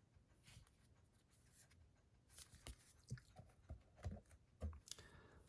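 Quiet handling noise of a boxed disc set: a few soft taps and rustles of cardboard and plastic cases being moved, mostly in the second half, with near silence before.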